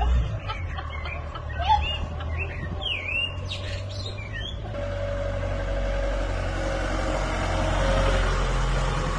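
Small birds chirping in short gliding notes over a low rumble. Then a steady vehicle engine noise that builds and is loudest about eight seconds in.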